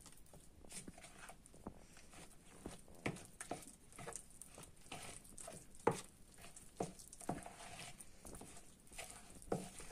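Thick strained yogurt, flour and egg being mixed in a plastic bowl: soft, irregular wet squelches and taps, a few louder ones scattered through.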